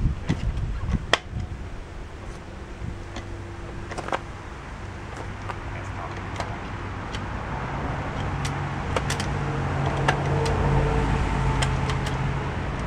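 A road vehicle's engine passes, its low hum rising over several seconds and then fading. A few sharp clicks and knocks sound in the first second or so.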